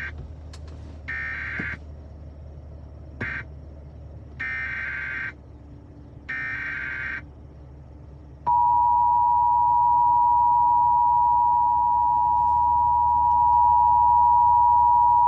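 Emergency Alert System signals: a series of short, buzzy SAME data bursts (the digital header announcing a severe thunderstorm warning), then, about eight and a half seconds in, the loud, steady two-tone EAS attention signal.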